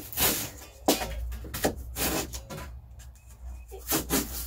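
Short strokes of a flat metal scraper blade across a plywood floor, scraping up crumbs of dried foam: several quick scrapes, a pause in the middle, then a couple more near the end.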